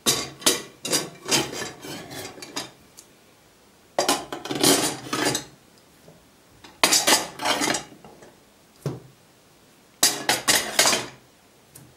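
Glass jars with metal twist-off lids being set down on the plates of a metal autoclave loading rack. They clink and knock against the metal in about five separate bursts, each a run of several quick knocks.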